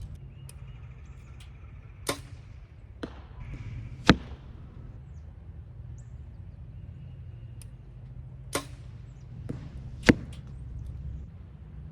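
PSE Mach 33 compound bow shot twice, about 4 and 10 seconds in, each a sharp snap of the string at release, with quieter clicks in between from handling the bow and arrows. A steady low rumble of wind on the microphone runs underneath.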